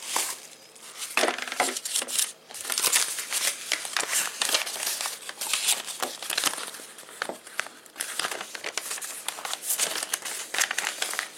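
Packaging crinkling and rustling as a parcel is unwrapped by hand, with many irregular crackles.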